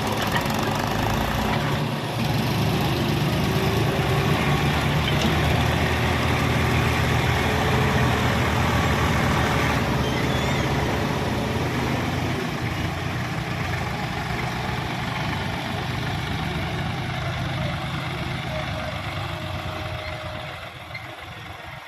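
Heavy diesel engine of a backhoe loader or tractor running steadily, gradually fading away over the last several seconds.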